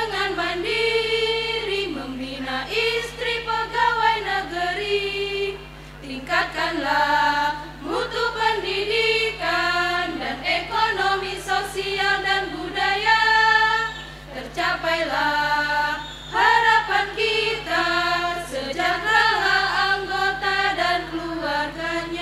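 Women's choir singing in parts, closing on a held chord near the end.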